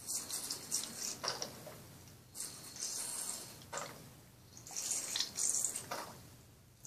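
Thin liquid squirting and gurgling out of a squeezed soft plastic doll's feeding cup into a baby doll's mouth, in several short hissy bursts with brief pauses between them.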